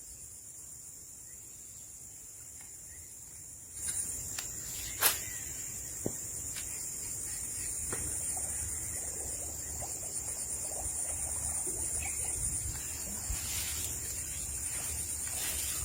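Insects chirring in a steady, high-pitched chorus that grows louder about four seconds in, with a few sharp clicks, the loudest one about five seconds in.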